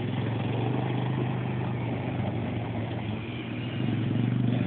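Kawasaki KX85 two-stroke dirt bike engine running at steady revs, easing off slightly about three seconds in and picking up again near the end.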